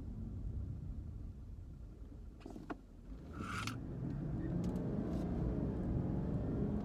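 Interior sound of a 2008 Lexus LS460L's 4.6-litre V8 and road noise while driving with the windows up. The sound eases off a little about two seconds in, with a brief click and a short hiss around the three-second mark. Then the engine's pitch climbs under light acceleration.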